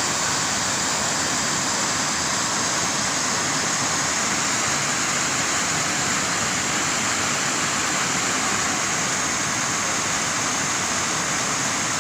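Steady rushing of flowing water, an even hiss with no breaks or changes.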